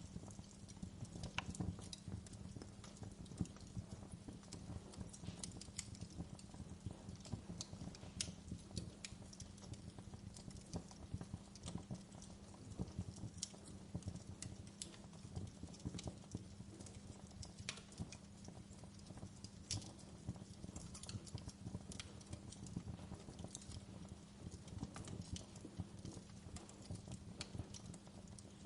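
Wood campfire burning, with frequent irregular crackles and sharp pops over a low steady rumble.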